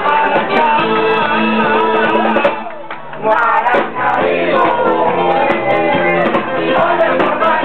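Live dance-pop music with a male singer on a microphone over a backing track. The music dips briefly about two and a half seconds in, then comes straight back.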